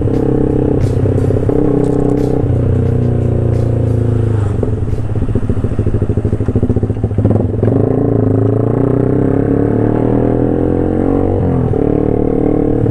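Yamaha MX motorcycle with an open 'brong' exhaust, under way. The engine runs steadily, eases off briefly about four seconds in, then climbs in revs for several seconds before dropping back near the end.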